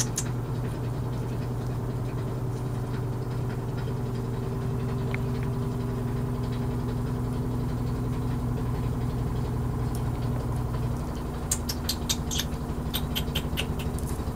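Washing machine running with a steady low hum. Near the end come a run of light clicks and scratches, the puppies' claws on the plastic pen wall.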